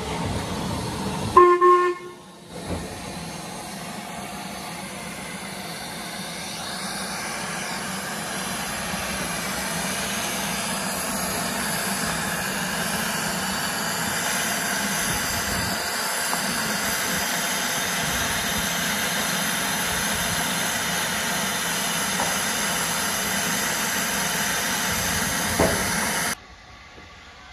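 LMS Black Five 4-6-0 steam locomotive 45305 gives one short whistle blast, then steam hisses steadily, slowly growing louder, until the sound cuts off suddenly near the end.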